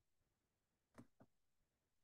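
Near silence: room tone, with two faint clicks about a second in, a quarter second apart.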